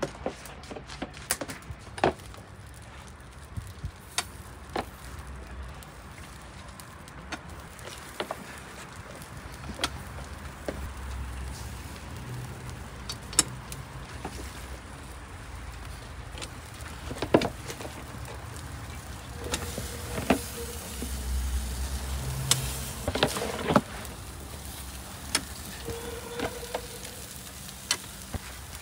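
Metal meat hooks clinking and knocking against rebar bars laid across the mouth of a tandoor as marinated lamb pieces are hung: irregular sharp clicks, a few seconds apart.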